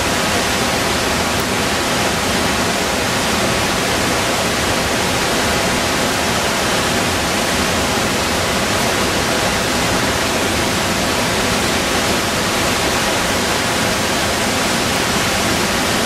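La Fortuna Waterfall's loud, steady rush of falling water.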